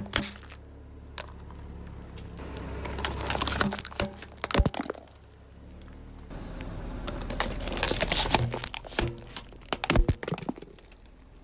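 Plastic bottles and cans being crushed and bursting: a string of separate sharp cracks, pops and crunches. The loudest cracks come about four and a half seconds in and again about ten seconds in.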